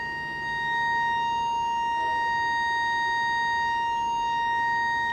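Steady 1 kHz test tone from the Nordmende Caruso tube radio, demodulated from an FM signal generator, carrying a strong overtone and a string of weaker ones: the tone is distorted, its sine wave clipped in the radio's FM detector stage.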